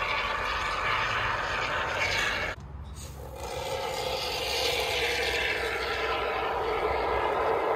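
Great Stuff expanding foam sputtering and hissing out of its aerosol can through the straw applicator as it is squirted into a hollow rocker panel. It breaks off briefly about two and a half seconds in, then carries on steadily.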